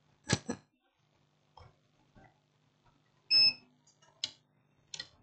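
A few light clicks and knocks of a circuit board and tools being handled on a workbench, with a louder clink about three seconds in that rings briefly.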